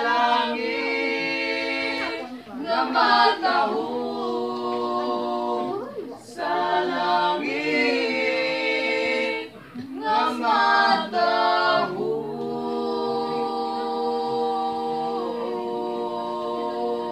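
Three young voices, two female and one male, singing a song together a cappella, without any instruments. They sing in phrases a few seconds long with long held notes and short breaks between them.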